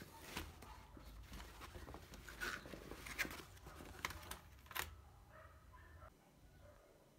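Handling of a plastic-cased set of Copic Sketch markers: light rustling and about five sharp clicks and taps as the box is pulled from a fabric bag and set down on a marble tabletop, quieter after about five seconds.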